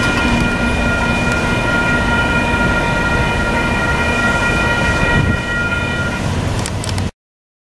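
Railroad grade-crossing warning bell ringing as a steady tone with several pitches over low rumble, as the crossing clears after a train; the tone fades out about six seconds in and all sound cuts off abruptly about a second later.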